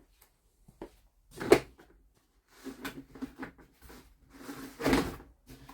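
Objects being handled and set down in a small room: a sharp knock about a second and a half in, then a run of clattering and scraping.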